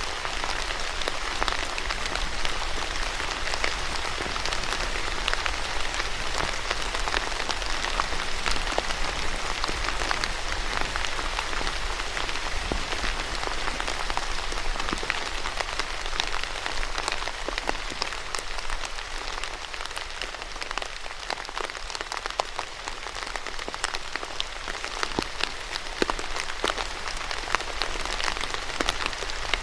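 Steady rain falling on a surface, an even hiss thick with close, sharp raindrop taps.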